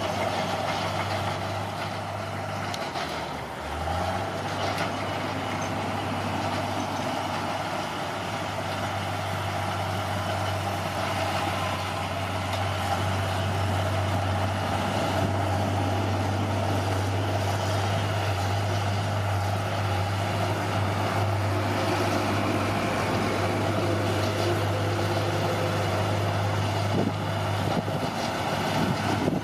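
Bulldozer's diesel engine running steadily under work, with a short drop in engine speed about three seconds in before it picks back up.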